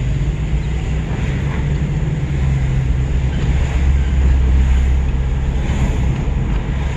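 Road vehicle driving, heard from inside the cabin: a steady low rumble of engine and road noise that swells slightly about four seconds in.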